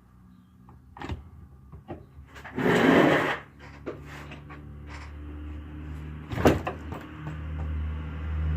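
Lawn mower being started: a few knocks of handling, a short loud rasping noise about three seconds in, a sharp click, then the mower's motor catching and running with a steady low hum that grows louder near the end.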